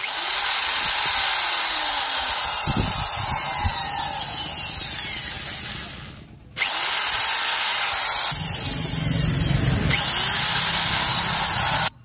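Corded electric hand drill boring through a wooden handle scale on a machete's steel tang: it runs steadily for about six seconds, winds down and stops briefly, then runs again for about five seconds and cuts off suddenly near the end.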